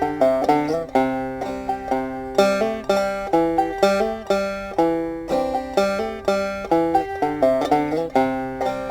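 Banjo played clawhammer style: a steady stream of plucked notes, each struck sharply and then ringing down, in a bouncing rhythm.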